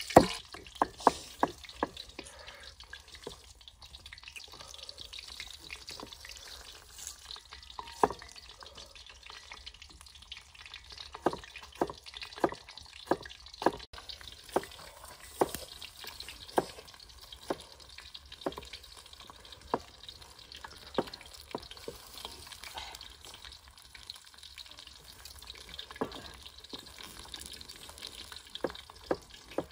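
Cleaver chopping on a wooden chopping block: sharp knocks, a quick run near the start and then roughly one a second, over the faint steady sizzle of fish frying in a wok.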